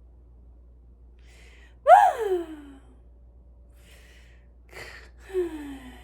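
Playful mock snoring by a person in bed: a soft breathy intake, then a high voiced sigh that slides downward. This happens twice, and the first sigh, about two seconds in, is the louder.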